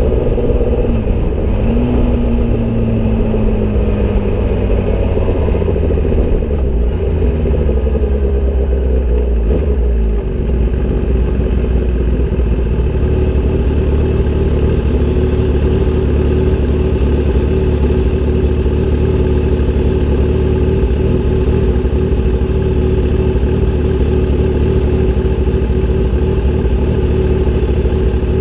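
Kawasaki sportbike engine through an SC-Project aftermarket exhaust, heard up close from the bike. Its pitch falls as the bike slows over the first several seconds, then it settles to a steady, even note from about halfway through.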